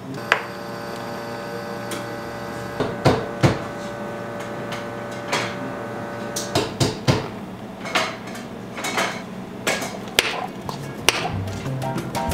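Ice cubes clinking and knocking in clear plastic cups and hard plastic dome lids clicking onto them: a run of sharp clicks and knocks, a few at first and then many close together in the second half.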